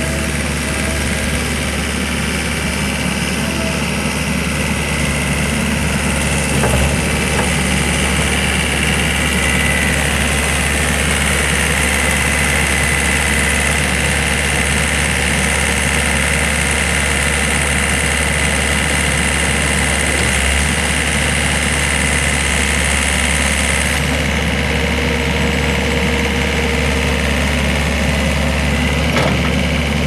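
John Deere 317 skid steer's four-cylinder turbo diesel engine running steadily, with a high whine that grows stronger about ten seconds in.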